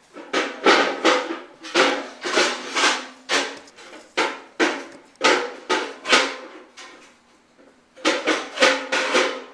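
A baby banging repeatedly on a hard object that rings, about two loud strikes a second, with a short break about two-thirds of the way through before the banging starts again.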